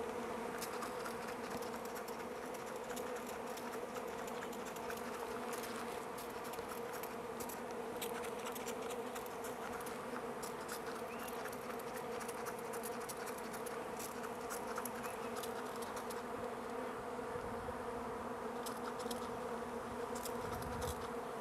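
Swarm of honeybees buzzing steadily in the air around a hive, just after a bee package has been shaken into it.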